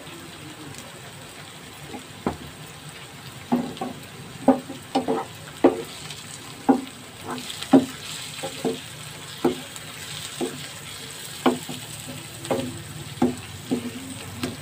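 Wooden spatula stirring chopped onion and tomato with spices in a non-stick frying pan: irregular knocks and scrapes against the pan, about one a second starting about two seconds in, over a steady low sizzle of the frying masala.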